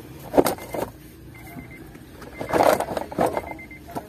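Hands working car interior trim and floor carpet around the center console: irregular plastic knocks and rustling, busiest about two and a half to three seconds in.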